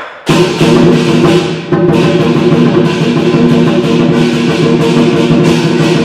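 Music with drums and sustained pitched instruments. It comes in with a loud hit about a third of a second in and turns fuller about two seconds in.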